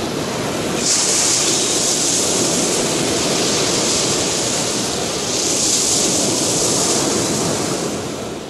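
Storm sound effect of a rough sea: a dense, steady rush of breaking waves that swells twice and fades out near the end.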